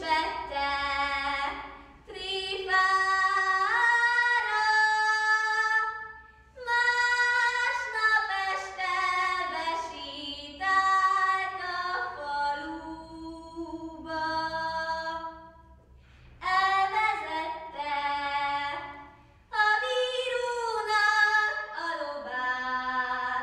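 A teenage girl singing a Hungarian folk ballad solo and unaccompanied, in sung phrases of a few seconds with short breaks between them and held notes stepping up and down in pitch.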